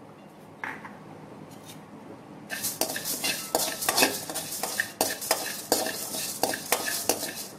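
A metal spoon stirring coriander seeds as they roast in a metal kadai: quick, repeated scrapes and clinks of spoon on pan, with the seeds rattling, starting about two and a half seconds in after a faint first scrape.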